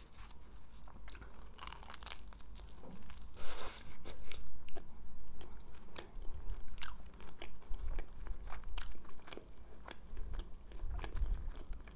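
Close-miked mouth sounds of a person biting into and chewing a shawarma wrap: many short, irregular clicks and smacks as she chews.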